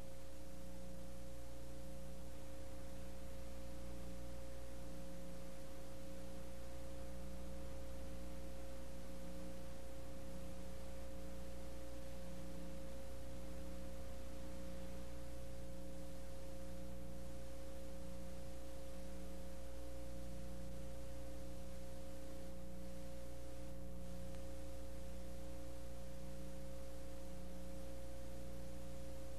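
Steady electrical hum: a low drone with a few constant higher tones over a faint hiss, with no program sound.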